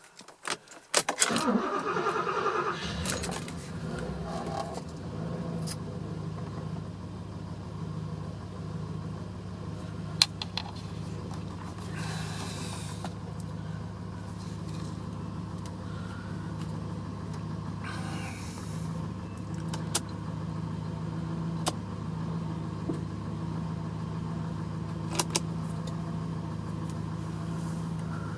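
Porsche 928 S2's V8 cranked by the starter, catching about a second in and then settling into a steady idle. A few sharp clicks sound over the idle.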